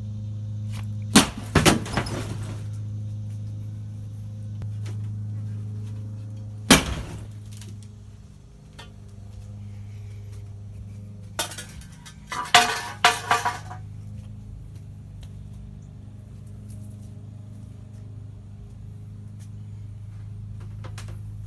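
A television being smashed with a tool in hard blows, with crashing and breaking. There is a sharp crash about a second in followed by a few more, another single crash near seven seconds, and a cluster of crashes and clinks from about eleven and a half to fourteen seconds. A steady low hum runs beneath.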